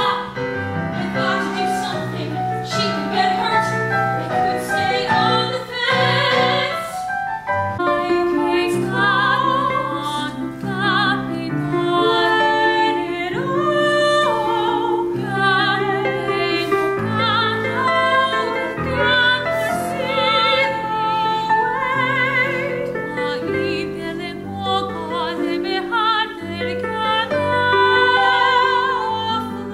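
Female voices singing a musical-theatre song in a sustained, operatic style with vibrato, accompanied by held keyboard chords.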